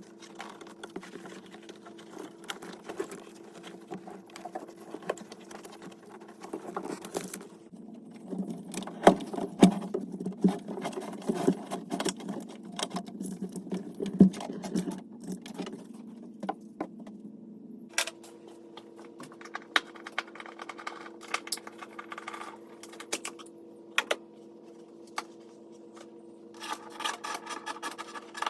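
Rapid clicking and rattling from work on a car's wiring, over a steady hum, with a denser, louder stretch of clatter through the middle.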